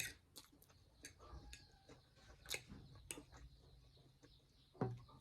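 Close-up eating sounds: scattered faint clicks and smacks of chewing and lips on instant noodles, with one louder low knock near the end, likely a spoon or dish against the table.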